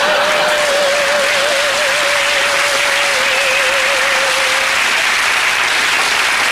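Studio audience applauding, with a wavering, warbling tone over it, the stock 1950s sci-fi film sound effect. The tone sinks slowly and stops about two-thirds of the way through.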